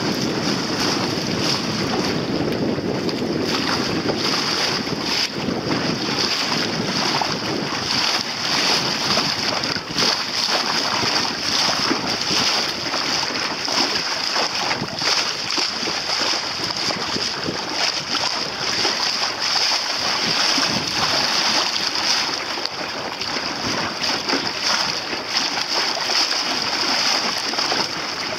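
Wind buffeting the microphone over the rush and slap of choppy water around a small sailing boat under way, with a steady high hiss.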